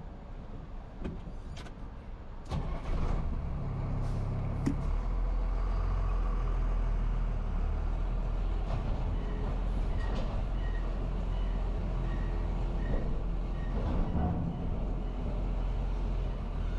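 Truck engine pulling away slowly from a stop, a steady low rumble that picks up about three seconds in. A few short clicks come just before it.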